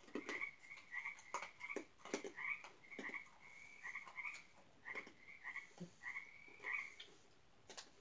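Frogs calling outside: a run of short croaks at one steady pitch, about two or three a second, going on throughout.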